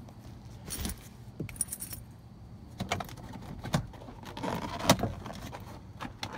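Handling noise around a 1997 Buick Regal GS's plastic door-panel trim. A rustle comes as a camera is set down, then a brief jingle, then scattered sharp clicks and knocks as hands grip and work the door pull and handle bezel. The loudest knock comes about five seconds in.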